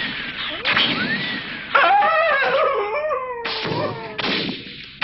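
Cartoon sound effects. Two whistles rise and fall in pitch, then a loud wavering cry slides down in pitch, and two sharp shotgun blasts follow near the end.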